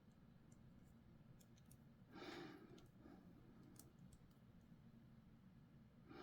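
Faint small clicks of plastic model-kit parts being handled and test-fitted, with a soft breath about two seconds in.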